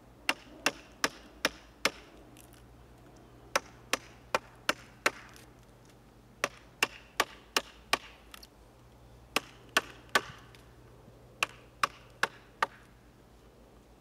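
A wooden baton striking the spine of a SOG Vulcan folding knife whose blade is set across a branch, driving it through the wood. The sharp knocks come in runs of three to five, about two and a half a second, with short pauses between runs.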